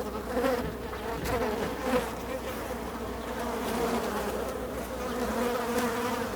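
Many flies buzzing in flight at once, a dense steady drone that wavers in pitch, with a few individual flies swelling louder as they pass close.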